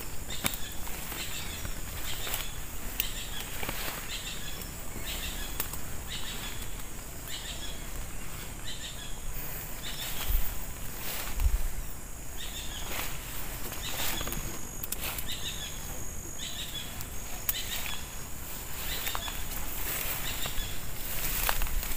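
Footsteps pushing through dense leafy undergrowth and tall weeds: a rhythmic swishing rustle of stems and leaves with each stride, with two low thumps about halfway through.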